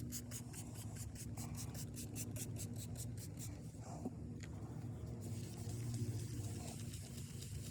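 Sandpaper rubbed quickly back and forth by hand on a plastic headlight lens, about five strokes a second. The rhythm stops about five seconds in and gives way to a softer, even rubbing hiss.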